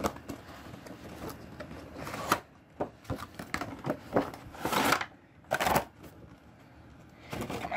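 Cardboard toy box with a plastic window being handled and turned over: irregular scrapes, rustles and knocks of the packaging, with two louder scuffs past the middle.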